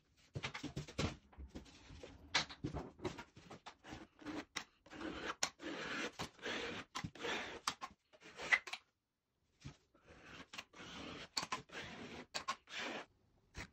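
Metal spatula scraping along a plaster moulding and the wall, smoothing plaster adhesive into the joint: a run of uneven scrapes and small taps with brief pauses.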